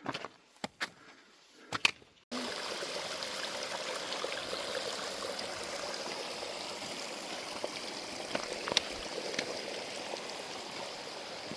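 A few sharp clicks over a quiet background, then a steady rush of running water, like a small stream, that starts abruptly about two seconds in.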